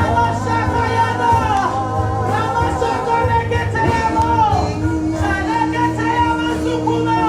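Church worship music: a voice sings long, held, sliding notes over steady instrumental accompaniment.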